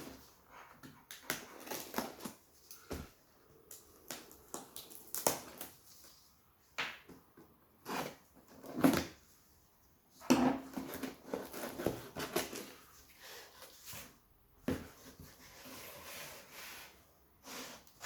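A cardboard parcel being opened and unpacked by hand: irregular rustling, scraping and tearing of packaging with short clicks and knocks.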